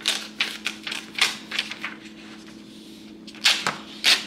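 A run of sharp, irregular clicks and taps, a quick cluster in the first two seconds and a few more near the end, over a steady low hum.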